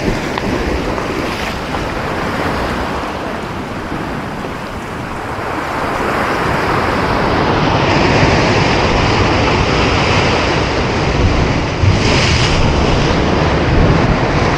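Ocean waves breaking and washing over a rocky shore, with wind buffeting the microphone. The surf grows louder about halfway through, with a sharper splash near the end.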